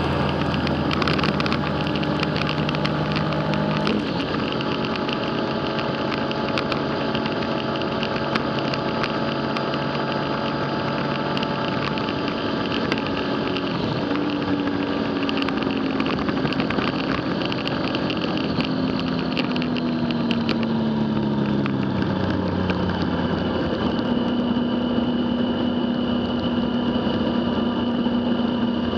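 Motorcycle engine running under way, with steady wind and road noise. The engine note changes about four seconds in, falls steadily for several seconds past the middle as the bike slows, then holds steady.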